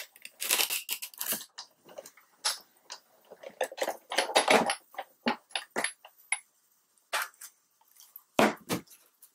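Sizzix Big Shot manual die-cutting machine being hand-cranked, a sandwich of clear plastic cutting plates and a metal die rolling through its rollers with irregular clicks and crunching scrapes. Near the end the plates are pulled free and handled, with a louder clack.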